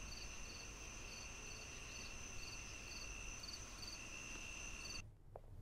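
Night insects chirping: a steady high cricket trill with a shorter chirp repeating about twice a second over a faint background hiss. The sound cuts off suddenly near the end.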